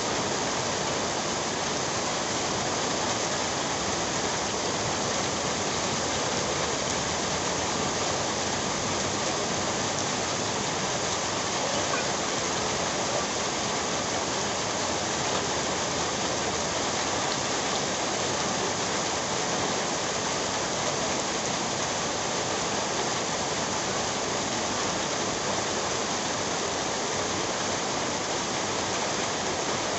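Heavy rain falling steadily on wet pavement, an even hiss of drops.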